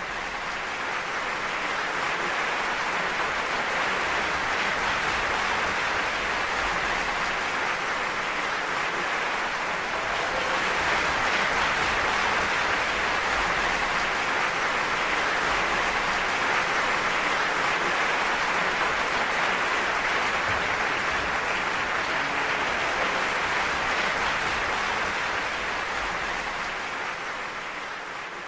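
Audience applauding steadily, fading in at the start and fading out near the end.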